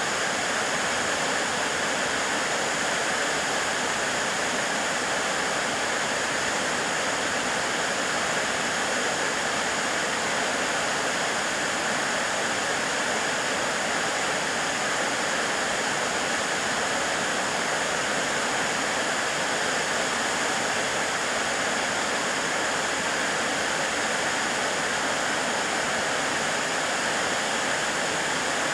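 Narada Falls, a waterfall, pouring steadily: a constant, even rush of falling water.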